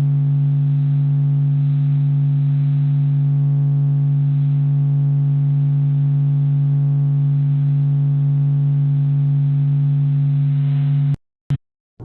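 Steady low electronic drone, one held hum with a stack of overtones and no change in pitch or loudness. It cuts off abruptly about eleven seconds in, followed by a short blip.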